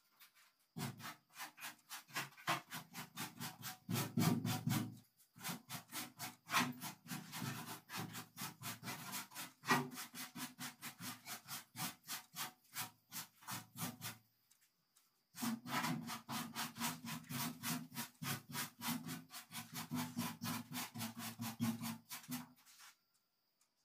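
A paintbrush dragged back and forth over the old Toyota Kijang's painted steel bonnet, brushing on a wood-grain finish: scratchy rubbing strokes, about two or three a second, with a pause of about a second midway.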